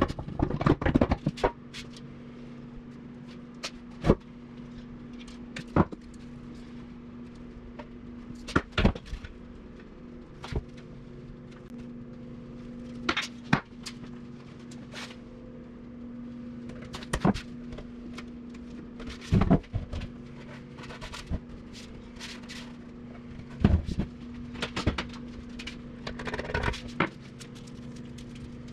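Hammer blows on the steel fuel tank of a 1978 Suzuki GS750, knocking the knee indentations into its sides: sharp knocks at irregular intervals a second or a few seconds apart, some in quick clusters, over a steady low hum.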